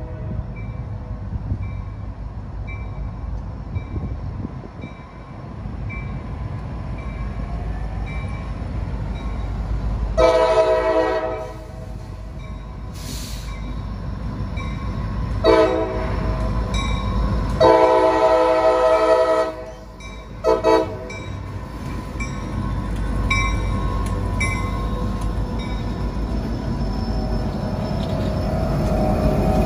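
CSX freight train's diesel locomotives approaching and passing a road crossing. The multi-chime locomotive air horn sounds a long blast, a short one and another long one for the crossing, over the steady dinging of the crossing bell. The low rumble of the diesel engines grows as the locomotives roll past near the end.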